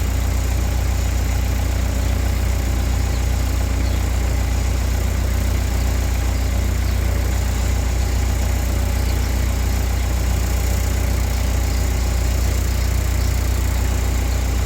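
A machine running steadily with a loud low hum and a fast, even ticking in it.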